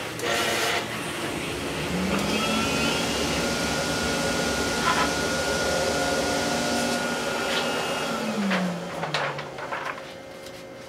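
RTI Vortex 4200 wide-format Memjet printer running a test print: a motor whine rises about two seconds in, holds steady with a higher whine above it, and winds down near the end as the print feeds out.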